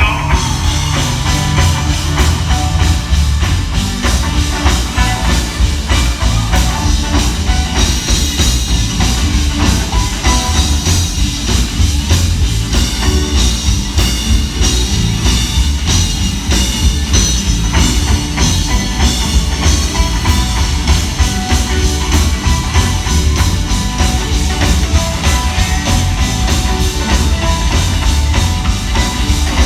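Live gospel band playing loudly, with electric guitar, bass and drum kit keeping a steady beat, heard through a hall's sound system.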